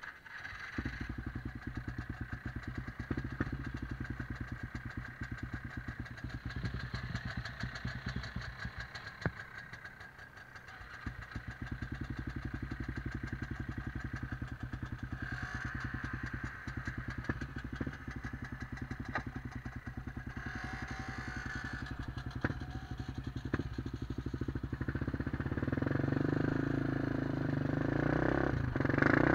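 A 2003 Honda 400EX quad's single-cylinder four-stroke engine, fitted with an aftermarket White Bros exhaust, starts about half a second in and then idles with an even pulse. It dips briefly about ten seconds in, and gets louder near the end as the quad pulls away.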